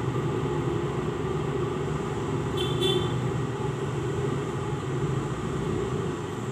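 Steady low rumble of nearby vehicle traffic, with a short high beep like a horn toot about two and a half seconds in.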